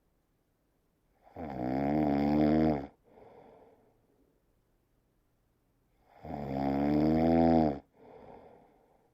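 Slow snoring: two long, loud snores about five seconds apart, each with a wavering pitched tone, and each followed by a quieter, breathy breath out.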